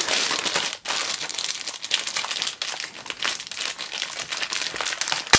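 Crinkling of a shiny plastic bag as hands handle and smooth it flat, with a sharp click near the end.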